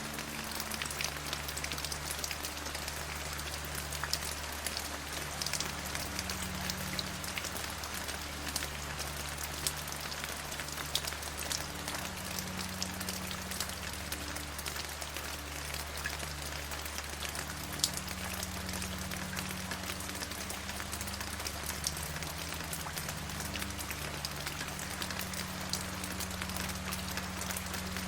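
Steady rain falling on a surface, an even hiss with many individual drops ticking. A faint low hum sits beneath it and shifts pitch every few seconds.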